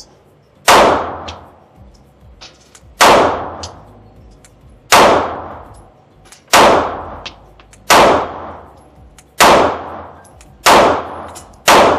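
Eight 9mm pistol shots from a Canik METE MC9 LS, fired at an unhurried pace about one to two seconds apart, each shot followed by a ringing echo that dies away.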